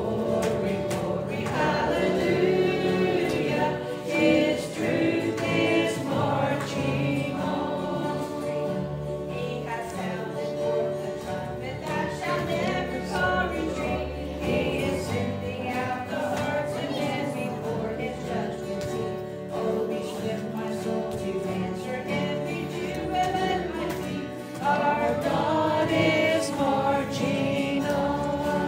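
A gospel hymn sung by a woman and the congregation to acoustic guitar and keyboard. It grows louder about 25 seconds in.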